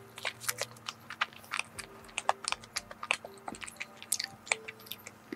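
Close-up chewing of a soft, creamy matcha-and-chocolate cream-filled rice cake, with many quick wet mouth clicks and smacks.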